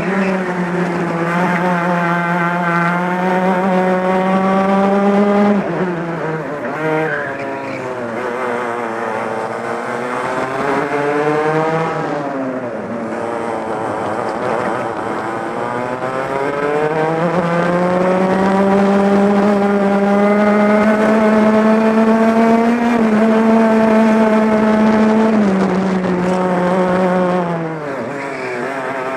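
Club100 two-stroke kart engine at race pace, heard onboard. The engine note drops sharply under braking into corners, about five and twenty-five seconds in. It sinks lowest about twelve seconds in, then climbs steadily as the kart accelerates along a straight.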